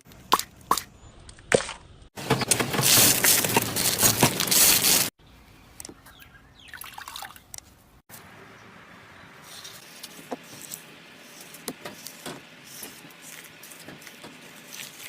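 Slime being handled in several short clips: wet squishing and dripping sounds with small sharp clicks, and a loud hissing stretch from about two to five seconds in.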